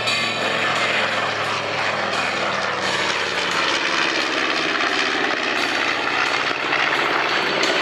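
Piston aircraft engines and propellers running steadily, the twin radial engines of a B-25 Mitchell bomber about to make a pass.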